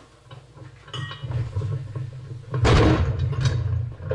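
Steel engine stand being handled: metal scraping and knocking, loudest in a scrape or thump about two and a half seconds in.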